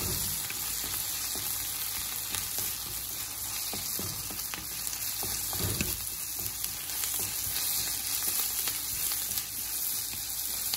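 Chopped onions and ginger-garlic paste sizzling in hot oil in a wok, stirred with a wooden spatula that scrapes and knocks against the pan.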